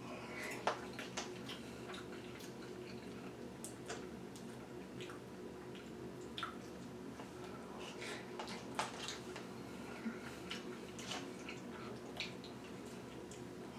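Faint eating sounds: a utensil clicking and scraping in an instant-pasta cup, with quiet chewing. The clicks are scattered and irregular.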